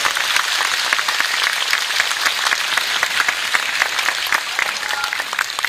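Audience applauding in a large hall, a dense clapping that thins out toward scattered single claps near the end.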